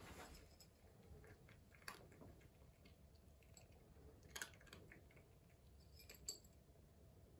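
Cat eating from a small dish: faint chewing with a few soft clicks spread through, the loudest a quick double click about halfway.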